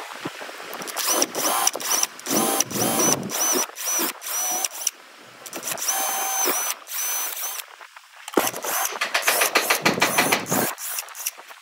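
Power drill boring holes into a wooden block. The motor whine starts and stops in several short bursts as the bit cuts into the wood, with a fast chattering stretch near the end.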